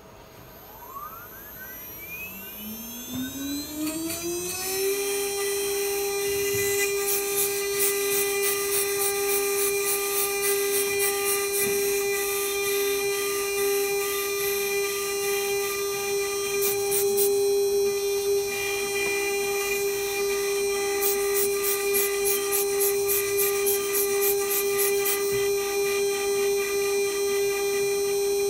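A small high-speed rotary grinder spins up with a rising whine over the first few seconds, then runs at a steady high pitch while grinding down an iPhone 7 logic board. Stretches of rapid high-pitched rasping and clicking come and go as the bit bites into the board.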